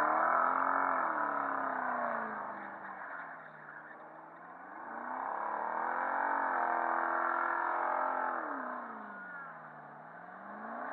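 Holden VT Commodore doing a burnout, its engine revs swinging up and down, held high for a couple of seconds in the middle, over the hiss of the spinning rear tyres.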